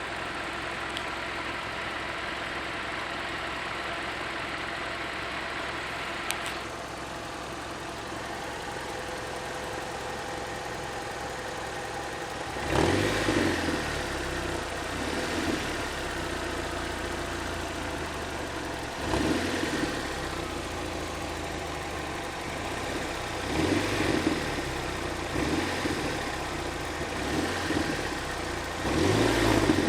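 Toyota 4A-FE 1.6-litre four-cylinder engine idling steadily, then blipped up in revs four times from about halfway through. The engine has a strange knock that the owner is trying to track down.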